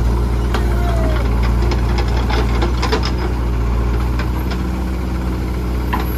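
Diesel engines running steadily: a JCB 3DX backhoe loader working its arm, with tractors idling alongside. Scattered knocks about two to three seconds in, as the bucket's load of mud drops into a tractor trolley.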